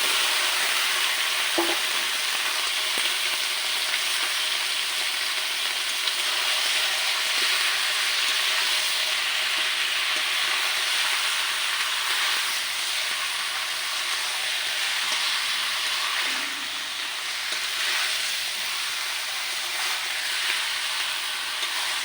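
Washed chicken pieces sizzling in hot mustard oil and fried spice paste in a kadai, a steady frying hiss that eases slightly about sixteen seconds in.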